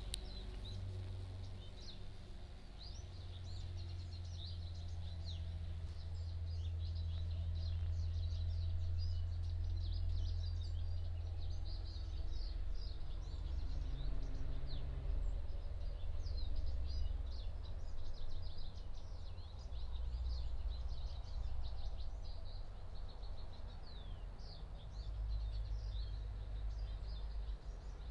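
Steady low rumble of a car driving on a winding highway, heard from inside, swelling and easing as it goes. Many short high chirps sound over it throughout.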